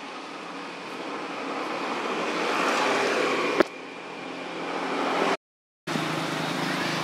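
Background noise of passing motor traffic, swelling louder over a few seconds, with one sharp click about three and a half seconds in; the sound drops out for about half a second near the end.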